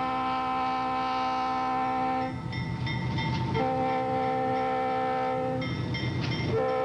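Fairbanks-Morse H-10-44 diesel switcher sounding its multi-chime air horn in long blasts. One blast ends about two seconds in, a second lasts about two seconds, and a third starts near the end. The locomotive's engine and wheels rumble in the gaps between blasts.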